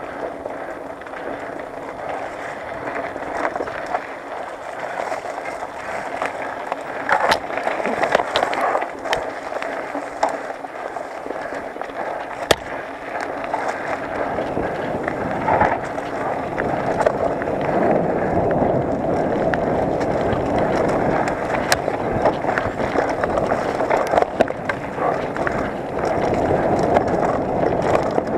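Mountain bike descending a rough dirt singletrack: steady tyre noise over dirt and loose stones with frequent knocks and rattles from the bike. It gets louder about halfway through as the speed picks up.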